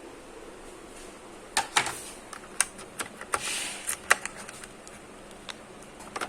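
Hands handling a new phone and its packaging: a run of sharp clicks and taps with a brief rustling slide in the middle, then a couple more clicks near the end.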